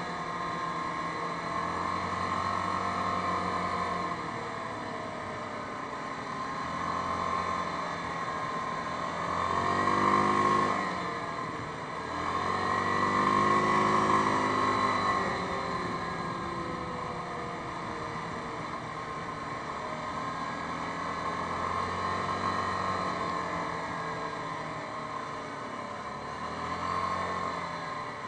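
Yamaha Grizzly 550 ATV's single-cylinder four-stroke engine running under way, heard from the machine itself. Its pitch and loudness rise and fall with the throttle, most clearly about ten seconds in and again around thirteen to fifteen seconds in.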